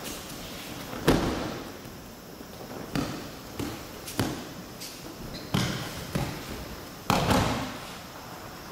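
Aikido partners being thrown onto tatami mats and taking breakfalls: a run of about seven thuds and slaps against the mat, each with a short echo. The loudest come about a second in and near the end.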